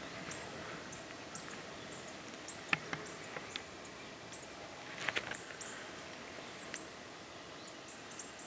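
Outdoor woodland ambience: a steady background hiss with faint, short, high chirps scattered throughout. A couple of sharp clicks come near three and five seconds in.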